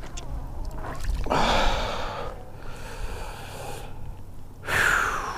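Two heavy breaths out by the angler, one about a second in and a louder, sigh-like one near the end.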